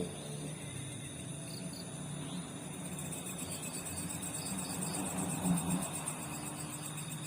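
Night insects, crickets, chirring steadily in a high, finely pulsing band over a low steady hum.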